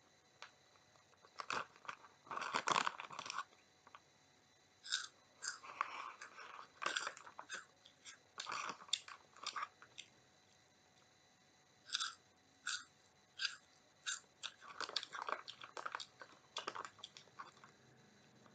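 Close-up crunching and chewing of Oriental Super Ring cheese ring puffs: clusters of crisp crunches as pieces are bitten and chewed, with short quiet pauses between mouthfuls.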